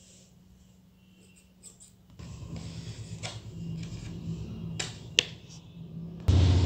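Paper and card handled and rubbed close to the microphone: rustling and scraping that starts about two seconds in, with a couple of sharp clicks. It gets much louder and heavier near the end.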